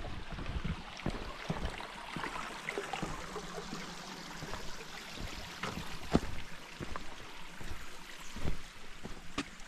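Steady rush of a flowing mountain stream, with a hiker's footsteps knocking on the rocky trail every so often.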